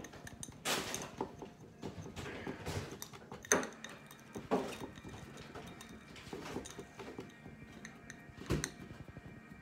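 A long thin metal spoon scraping and clinking against the inside of a drinking glass as it pokes and packs kinetic sand: a string of irregular taps and scrapes, with the sharpest clink about three and a half seconds in.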